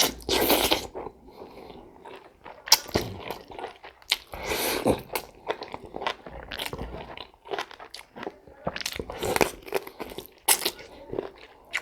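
Close-miked eating of home-raised chicken and its soup: repeated bites and chewing, with many short sharp clicks and wet mouth noises.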